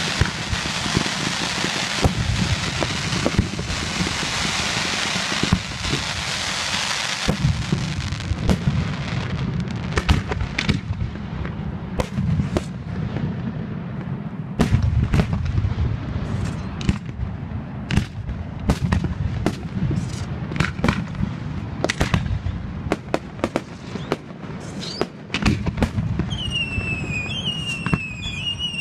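Aerial fireworks display: dense crackling for the first several seconds, then a steady run of sharp booms and bangs from bursting shells. Near the end a whistling firework gives a wavering, warbling whistle.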